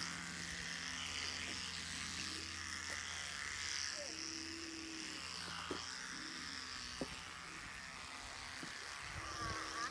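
Steady low buzz like a small motor running somewhere off, with a few faint brief clicks.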